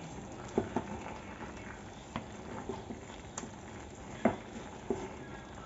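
Wooden spatula stirring spice-coated chicken pieces in a nonstick pan, giving soft irregular taps and scrapes against the pan over a faint steady hiss of the cooking curry.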